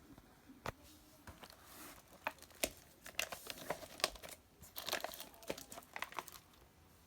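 Plastic wrapping or packaging crinkling as it is handled, with irregular crackles and taps that come thickest in the second half.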